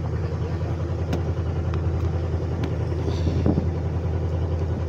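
Steady, even hum of an engine running aboard a small fishing boat, with a few faint clicks from the squid being handled.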